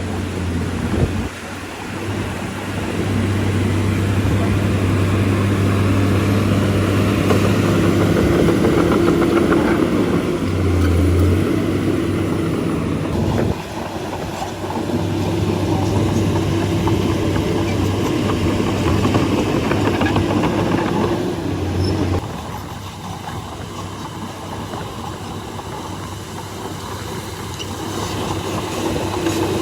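Heavy diesel engine of a bulldozer running steadily under load, with a low, steady engine drone. The sound drops suddenly about 13 seconds in and again about 22 seconds in.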